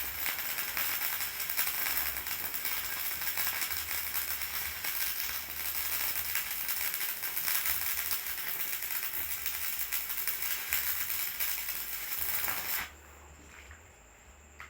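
Electric arc welding on corn sheller teeth: a steady, dense crackle and sizzle from the arc, which cuts off abruptly about 13 seconds in when the arc is broken.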